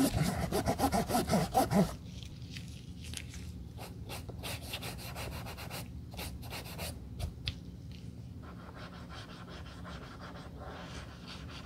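A cotton-wool swab held in tweezers scrubbing along the rubber sole edge and stitched seam of a white leather sneaker. Quick, louder strokes with a squeaky edge for the first two seconds, then softer, separate rubbing strokes.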